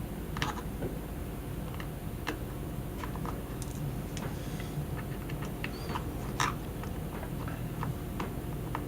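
Irregular small clicks and ticks of a pentalobe screwdriver turning out the bottom screws of an iPhone 4S.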